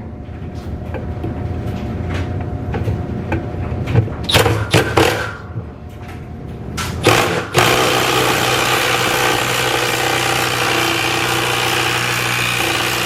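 Scattered clicks and knocks of handling over a low steady hum, then a loud, steady motor whir that starts abruptly about seven and a half seconds in.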